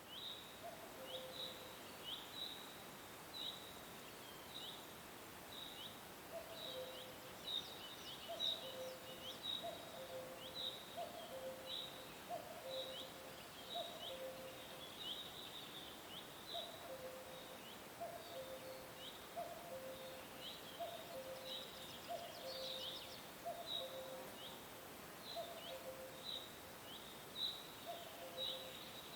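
Nature soundscape of animal calls: short high falling chirps repeat about twice a second, over a lower two-note call that repeats roughly once a second, with a faint steady hiss beneath.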